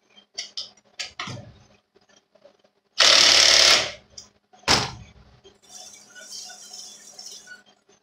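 Cordless power driver spinning a socket on a bench grinder's arbor nut, tightening down the wire wheel in one loud burst just under a second long about three seconds in. A single sharp knock follows a second later, among light clicks and taps of handling.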